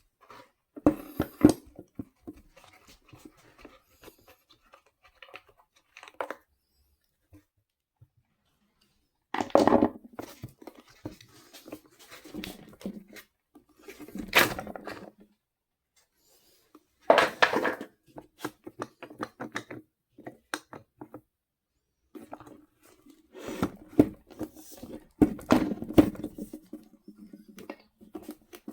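Hand-work on the parts of a Makita DUR193 cordless string trimmer during a motor replacement: irregular bursts of clicking, scraping and rustling of plastic and metal parts, separated by short pauses.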